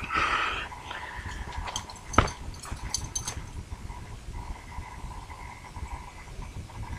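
Light clicks and taps of small objects being handled on a tabletop, a handful of them about two seconds in, the sharpest near the middle of that run, over a faint steady hum.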